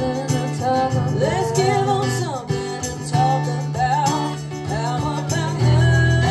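A band playing a country-rock song, with a singer over strummed guitar and a steady bass line.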